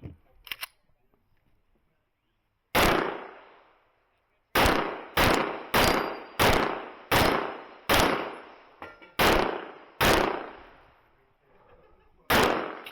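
About ten handgun shots fired in an IPSC stage run, at uneven intervals: one, a pause of nearly two seconds, then a quick string of shots about two-thirds of a second apart, and a last shot near the end. Each shot rings out with a long echoing tail.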